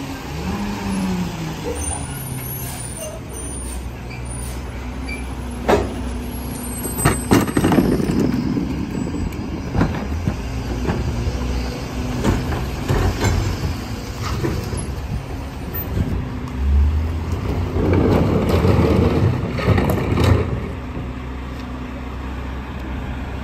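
Mack MRU rear-loader garbage truck's diesel engine running, with sharp clanks and bangs as a trash cart is hooked on and worked on the rear cart tipper. About 17 seconds in the engine speeds up to drive the hydraulics and a louder spell of hydraulic and cart noise follows as the cart is lifted and dumped into the hopper.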